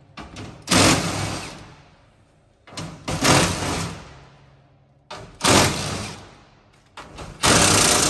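Cordless impact driver hammering as it backs out the bolts on a truck grille's bug screen. Four bursts come about two seconds apart, each a short blip followed by about a second of hammering that tapers off.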